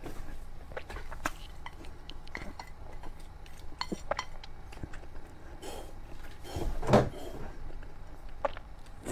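Close-up eating of noodles: utensils clicking against the bowl and mouth clicks. About seven seconds in comes a louder, half-second slurp of noodles.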